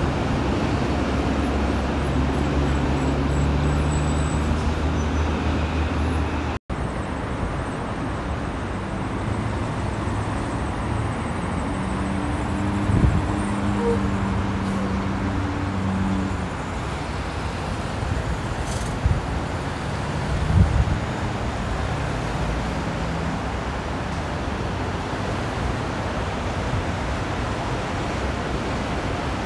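Steady freeway traffic noise: a constant tyre hiss with the low drone of heavy trucks' diesel engines passing. The sound cuts out for an instant about six and a half seconds in, and there are a couple of short louder bumps around the middle.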